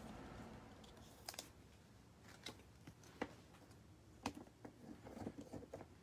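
Light clicks and taps of baseball cards being handled and set down on a tabletop, a few scattered sharp ticks that come closer together near the end.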